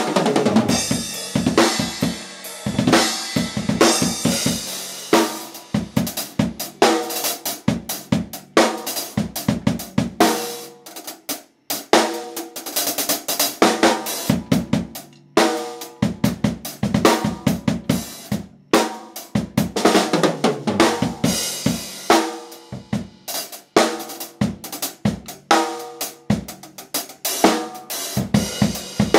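Drum kit being played in busy, irregular runs of snare, tom, bass drum and cymbal hits, with a few short stops between phrases.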